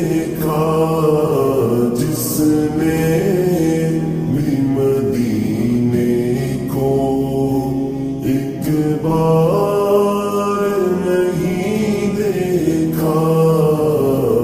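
A naat, an Urdu devotional song, sung with long held notes that waver and glide in pitch, slowed down and drenched in reverb.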